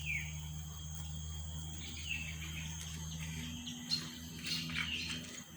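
Small birds chirping, short falling calls scattered throughout, over a steady high insect trill and a steady low hum.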